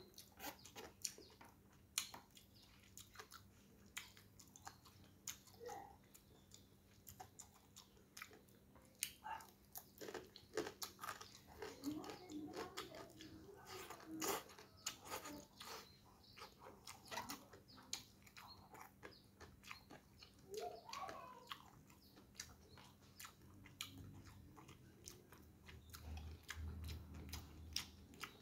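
Crunchy chewing and biting of crisp fried gereh eyek (salted fish) with rice and spinach, a long run of many sharp crunches.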